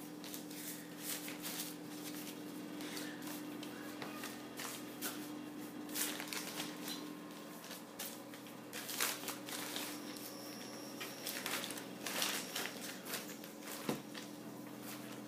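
Hands kneading soft potato gnocchi dough on a sheet of parchment paper: irregular rustling and crinkling of the paper with quiet squishing of the dough.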